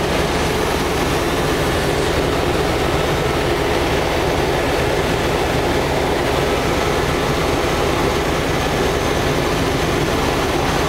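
Helicopter engine and rotor noise heard inside the cabin in flight: a steady drone.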